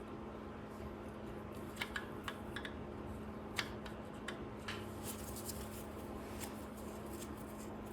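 Light, scattered metallic clicks from hand tools working a bolt loose on a Lotus 907 engine, over a faint steady hum.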